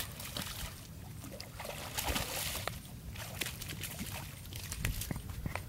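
A hooked largemouth bass thrashing and splashing at the water's surface, with the biggest burst of splashing about two seconds in. Scattered light clicks and a steady low rumble lie underneath.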